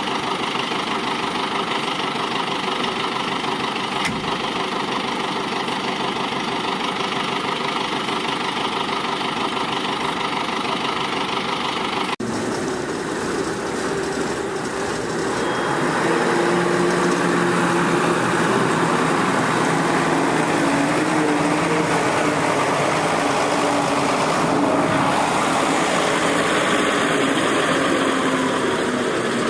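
Toy construction vehicle's motor running steadily, with a sudden break about 12 seconds in and louder from about 16 seconds on.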